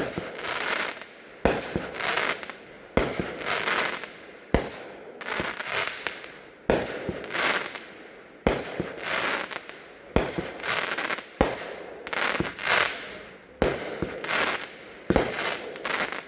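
Consumer multi-shot firework cake firing: a sharp launch or break bang about every second and a half, each followed by about a second of noisy burst.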